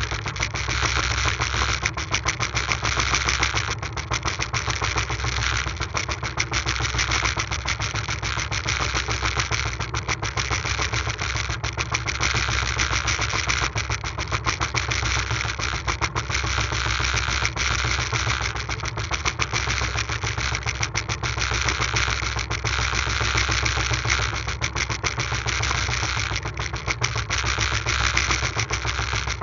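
Small wooden fishing boat's engine running steadily with a fast, even chatter.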